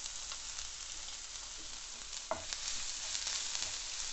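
Freshly added minced garlic sizzling in a little hot oil in a non-stick frying pan as it is stirred with a wooden spatula. There is one sharp knock of the utensil a little past halfway.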